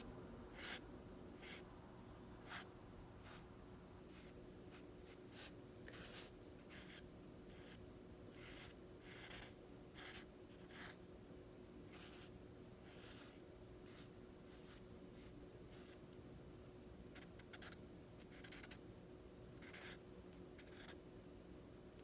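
Faint scratching of a drawing tool on paper: many short, irregular strokes, some quick runs of several, over a faint steady hum.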